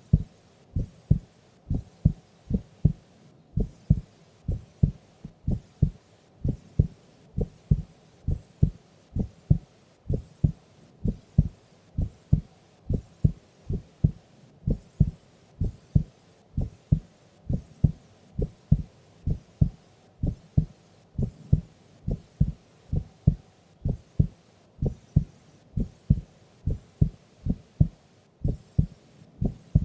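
A sleeping woman's heartbeat: a steady run of low, paired lub-dub thumps, about one beat a second.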